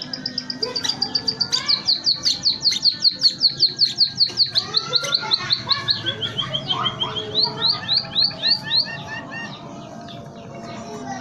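Caged emprit (munia) singing, its song trained on canary and zebra dove: a long fast series of repeated high sweeping chirps, about five a second, that steps down in pitch about six seconds in, rises again and breaks off near nine seconds.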